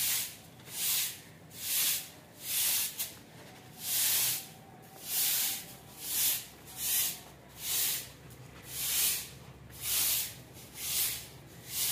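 Soft grass broom sweeping a concrete floor: a steady series of short swishes, about one stroke a second.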